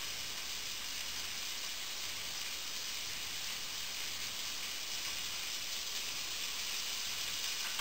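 Marinated beef steaks sizzling steadily as they sear in a frying pan on high heat.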